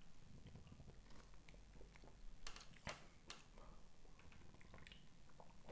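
Near silence: faint sipping and swallowing of melon cream soda from a can, with a few soft clicks around the middle.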